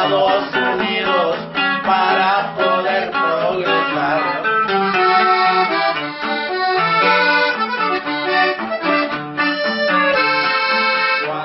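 Button accordion playing a corrido melody over a strummed guitar, in an instrumental passage with no singing.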